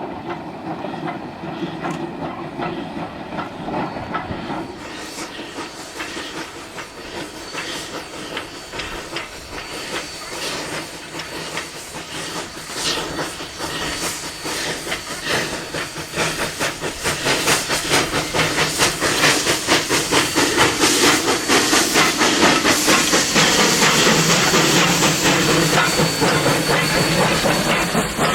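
Denver and Rio Grande Western No. 315, a narrow-gauge 2-8-0 Consolidation steam locomotive, working with a freight train: steam hiss over a close, rapid stream of exhaust beats. It gets louder about two-thirds of the way through.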